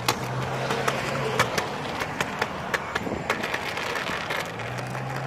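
Wheels rolling fast over pavement: a steady rolling rumble with many irregular sharp clicks and knocks, and a low steady hum for the first second or so and again near the end.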